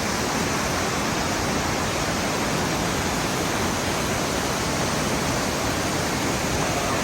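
Torc Waterfall crashing down its 20-metre drop: a loud, steady rush of falling water.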